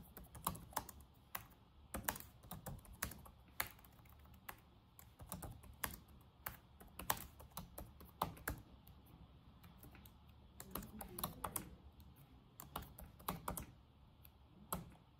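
Typing on a computer keyboard: faint, irregular keystroke clicks in short runs separated by brief pauses.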